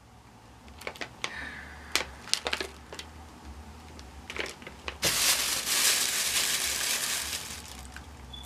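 A few small clicks and crinkles of a candy pouch being handled, then about five seconds in a loud rustling of a paper bag being opened and handled for a couple of seconds before it tapers off.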